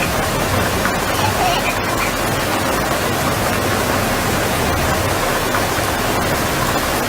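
A steady, loud rushing roar with no rhythm or tone, the kind made by strong wind or heavy water.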